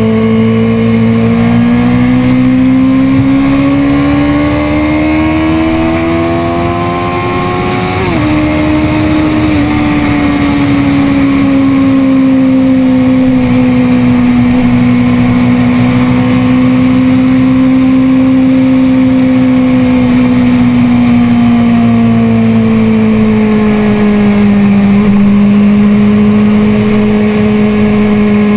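BMW S1000RR's 999 cc inline-four engine pulling on a steady part throttle, its exhaust note climbing slowly in pitch for about eight seconds. The pitch then drops suddenly in a quick upshift, and the note eases gradually lower as the bike slows a little.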